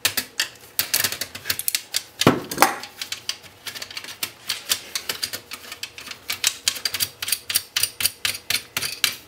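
Rapid, irregular clicking of a ratcheting screwdriver as screws are backed out of a metal cable-box panel, with one heavier knock a little over two seconds in.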